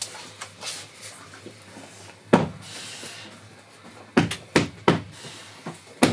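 Sharp hand slaps on a stuffed cloth bread cushion as flatbread dough is patted out on it: one loud slap about two seconds in, then a quick run of pats near the end.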